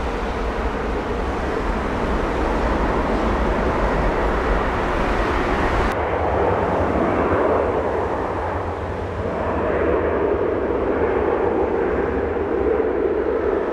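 Jet engines of an Airbus A330-200 at takeoff power on its takeoff roll, a steady, loud jet noise. About six seconds in it cuts to an Embraer 170 regional jet running along the runway on its GE CF34-8E turbofans, a duller jet noise with a hum that dips briefly and then swells again.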